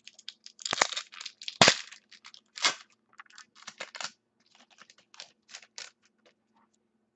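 Foil wrapper of a baseball card pack being torn open and crumpled: a run of sharp crackles and snaps, loudest three times in the first three seconds, then lighter crinkling that dies away about six seconds in.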